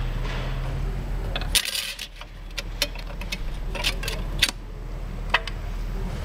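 Transmission clutch plates clinking against each other and the case as friction discs and steel plates are stacked into a Ford E4OD's intermediate clutch pack. It is a series of separate sharp metallic clicks, over a steady low hum.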